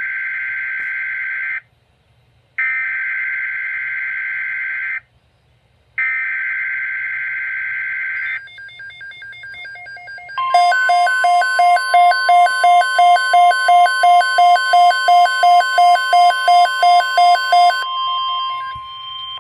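Emergency Alert System SAME header: three loud bursts of raspy digital data, each about two seconds long with a short silence between them. After a brief quieter stretch of faint beeps, the alert tone sounds: a steady tone with rapid pulsing beeps over it, about two and a half a second. The beeps stop near the end while the steady tone holds briefly and then cuts off.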